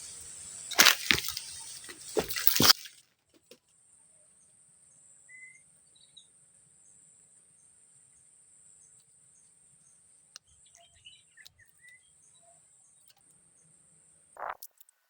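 A few loud knocks and rustles over the first three seconds, then a faint steady high-pitched insect drone with an occasional bird chirp, and a short brief sound near the end.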